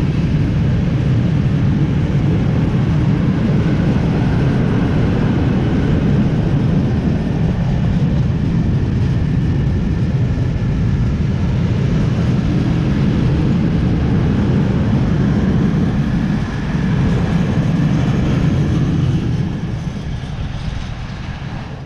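Freight train of open gondola wagons rolling past, a steady loud rumble of wheels on rails that fades over the last few seconds as the end of the train goes by.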